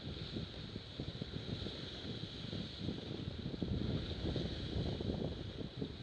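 Wind buffeting the microphone over the rush and hiss of water and spray from a Cirrus F18 racing catamaran's hull cutting through choppy water at speed.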